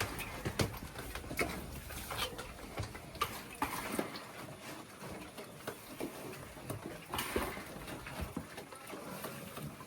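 Scattered, irregular knocks, taps and scuffs of work going on in a pig pen.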